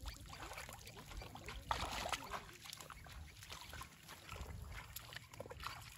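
Faint splashing and sloshing of shallow paddy water as a man wades and hand-plants rice seedlings into the flooded mud, with a louder splash about two seconds in.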